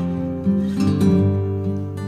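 Background music on acoustic guitar, with chords and plucked notes.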